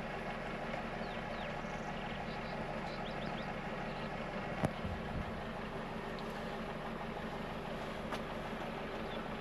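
An engine idling steadily with a low hum, with a few faint bird chirps and one sharp tap about halfway through.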